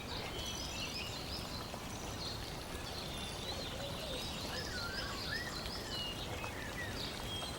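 Birdsong ambience: many small birds chirping in short, quick calls over a steady hiss of background noise.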